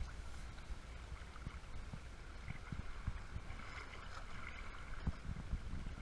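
Shallow water lapping faintly at the beach's edge over a low, steady rumble, with a few soft thumps about five seconds in.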